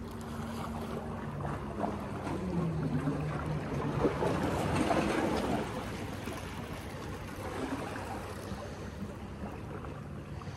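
Wind on the microphone and sea water lapping at shoreline rocks, with a low steady motor hum that drops in pitch about two and a half seconds in. The water and wind swell louder for a couple of seconds around the middle.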